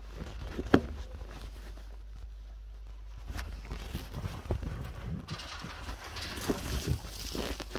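Soft, irregular thuds and scuffing of feet in loose sand as a tiger runs past close by, with a sharp knock just under a second in.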